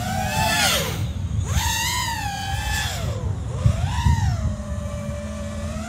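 FPV freestyle quadcopter's brushless motors and propellers whining, the pitch swinging up and down sharply with the throttle: a climb about half a second in, a drop near one second, a high hold from about one and a half to three seconds, another dip and rise around three and a half to four seconds, then a steadier whine.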